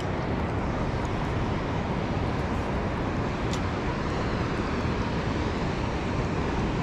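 Steady low rushing noise, with a faint click about three and a half seconds in.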